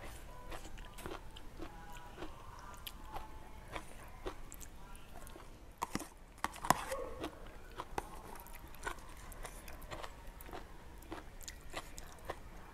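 Close-up mouth sounds of chewing bamboo-shoot curry with sticky rice, with many small clicks. The loudest, sharp clicks come about six to seven seconds in, as a metal spoon knocks against a plastic container.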